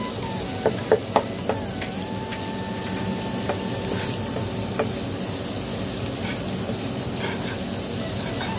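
Egg and potato curry sizzling in a non-stick kadai while a wooden spatula stirs it, with four sharp knocks of the spatula against the pan in the first second and a half. A thin whine dips in pitch and then holds steady from about one and a half to five seconds in.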